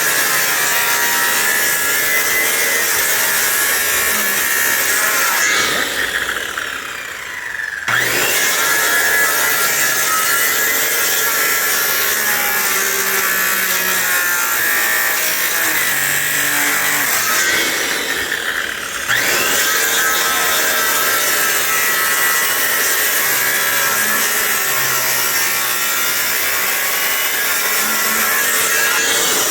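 A power tool cutting through a wooden pallet to shorten it, running steadily with a high whine. It eases off twice, briefly, then speeds back up.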